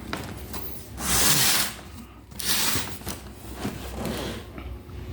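Packaging being handled: two loud rubbing scrapes, about a second and two and a half seconds in, with lighter rustling after them.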